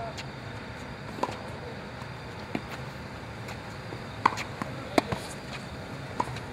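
Tennis ball being struck by rackets and bouncing on a hard court: single sharp pops every second or so, with a quick pair about five seconds in.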